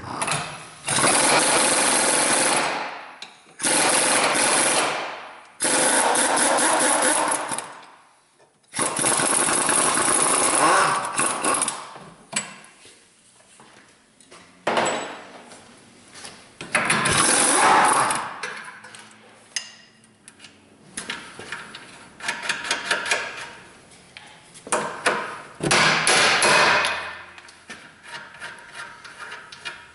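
Impact wrench hammering in about seven bursts of one to three seconds each, loosening and running out 19 mm suspension bolts: the shock's lower bolt and the control arm nut and bolt. Between the bursts there are quieter metal clinks.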